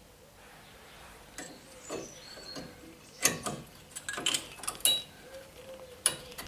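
Sharp metallic clicks and clanks of new brake pads being fitted into the caliper bracket and its spring clips: one about three seconds in, a cluster over the next two seconds, and one more near the end.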